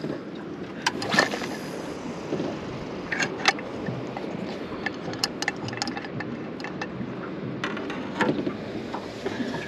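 Scattered light knocks and clicks from fishing gear being handled in a small boat, over a steady wash of wind and water.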